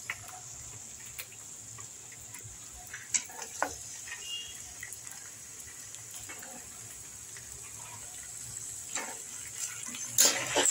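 Raw chicken pieces sizzling in hot oil in a steel kadai, with a steel ladle knocking and scraping against the pan a few times, loudest near the end.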